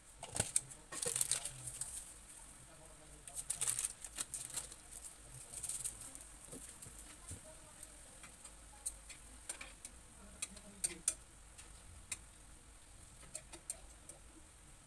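Metal tongs clinking and scraping against a frying pan as chicken pieces are turned, in scattered bursts of clatter that thin out in the second half.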